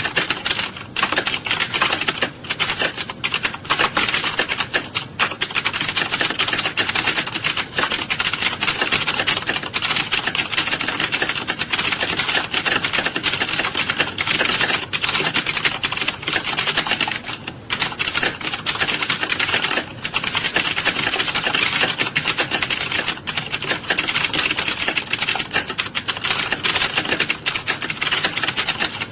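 Many computer keyboards being typed on at once in a typing class: a dense, continuous clatter of keystrokes with brief dips.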